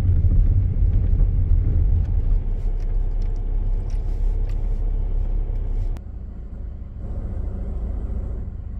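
Steady low rumble of a car driving, heard from inside the cabin. About six seconds in it drops to a quieter rumble.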